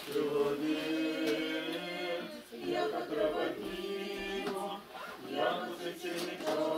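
A small group of voices singing a cappella, in the manner of a choir, with long held notes that step from one pitch to the next.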